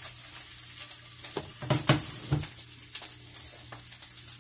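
Thin slices of pepperoni and salami sizzling and crackling in a hot frying pan, fried until crisp. A few louder knocks of the pan being moved on the glass stovetop come between about one and a half and two and a half seconds in.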